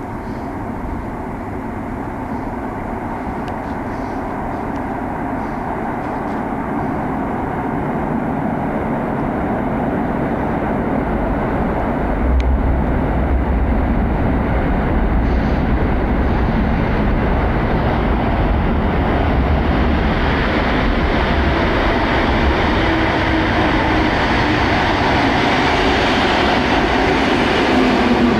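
PolRegio regional train pulling into the station: its running rumble grows steadily louder over the first dozen seconds, then holds as a heavy, steady rumble, with faint whining tones coming in near the end.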